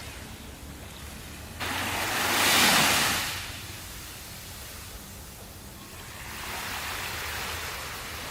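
Sea waves washing ashore: one loud wave breaks suddenly a little under two seconds in and fades away over the next two seconds, with a softer surge near the end.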